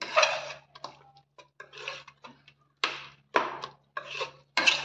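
A metal spoon scrapes and knocks against the sides of an aluminium pressure cooker while stirring thick aviyal. The strokes are short and irregular, about seven in all.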